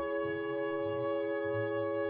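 Orchestral background music holding a sustained chord, with low bass notes shifting underneath.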